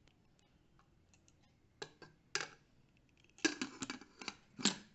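Metal clicks and light clanks of a Bajaj pressure cooker's lid being fitted and locked shut. A few sharp clicks come about two seconds in, then a quicker cluster near the end.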